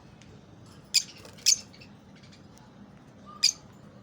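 Ring-necked parakeets calling in an aviary: three short, shrill squawks, two close together about a second in and one more near the end, with faint chirps between.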